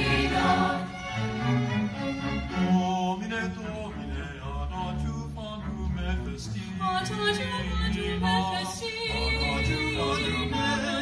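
A mixed choir singing with a string orchestra of violins and cellos, the low strings holding a steady bass line. From about seven seconds in, a few solo voices with a wide vibrato carry the melody over the orchestra.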